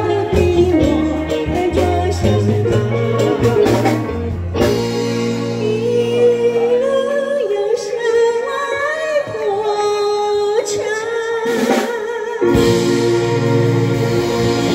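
A woman singing a Chinese-language song through a microphone, with bass, drums and keyboard behind her. About a third of the way in the bass drops out and her voice carries on over lighter backing. Near the end the full band comes back in after a short crash.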